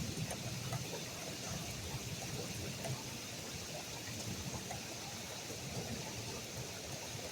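Steady rain falling in a thunderstorm, with water running.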